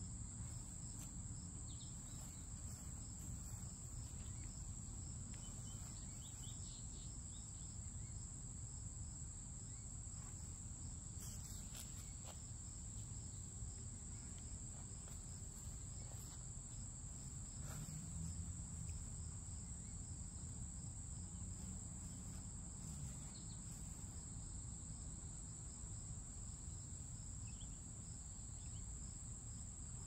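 A steady, unbroken high-pitched insect chorus, with a faint low rumble beneath it.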